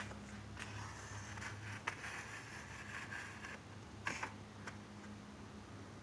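Small 5–6 RPM AC synchronous turntable motor humming steadily as it turns a prop arm. The cloth-sleeved arm rustles as it drags across the wooden workbench, and there are two sharp clicks, about two and four seconds in.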